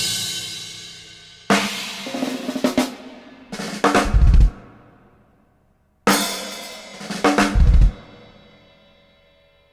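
Drum kit played in free improvisation: bursts of cymbal crashes with snare and bass drum hits, each burst left to ring out and fade. There is a brief moment of silence a little past halfway, and the last crash decays away near the end.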